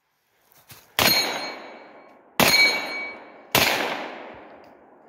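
Three single shots from a CZ Scorpion 9mm carbine, a little over a second apart, each ringing out and dying away over about a second. A faint click comes just before the first shot.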